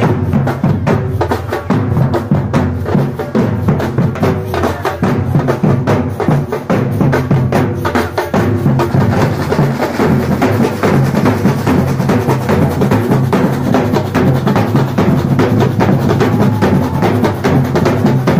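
Loud drum-led music from a live drum group, with many fast strokes a second over a deep low drum.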